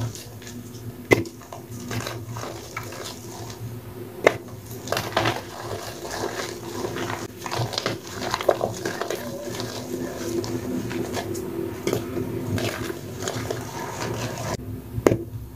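Hand squeezing and crushing soft hydrophobic chalk powder, giving an irregular run of crumbly crunches and sharp crackling clicks, over a faint steady low hum.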